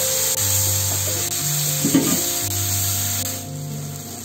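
Chopped tomatoes frying and sizzling with onions and spices in a nonstick pan as they cook down into a masala, stirred with a wooden spatula, with one louder scrape of the spatula about two seconds in. Soft background music plays underneath.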